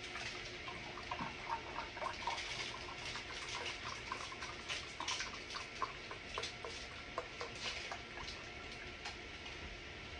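Chicken frying in olive oil in a skillet, with a steady, irregular crackling and popping.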